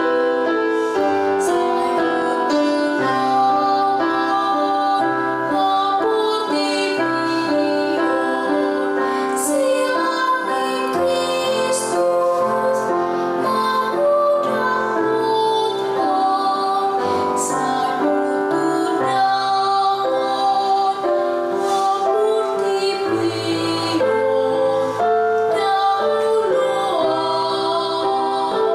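A teenage girl singing a solo song over a piano or keyboard accompaniment.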